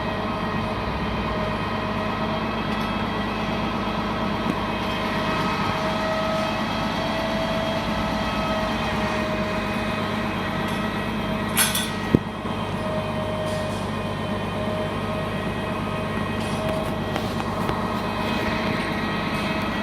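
Feed truck engine running steadily, with a short sharp knock about twelve seconds in.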